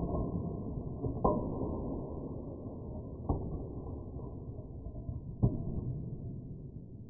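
Dominoes toppling in a chain, played back in slow motion: a low, continuous clatter with three sharper knocks, about one, three and five and a half seconds in, slowly fading toward the end.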